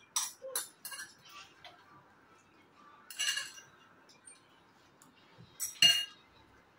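Utensils clinking and scraping against ceramic bowls while noodles are eaten: a string of short, sharp clinks, the loudest near the end.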